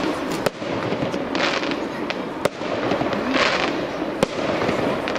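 Aerial fireworks shells bursting: a few sharp bangs, the loudest near the end, with stretches of hissing between them.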